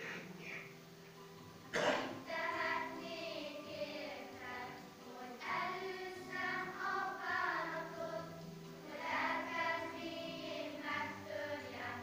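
Children's choir singing, heard from across a hall. A sudden sharp noise about two seconds in is the loudest sound.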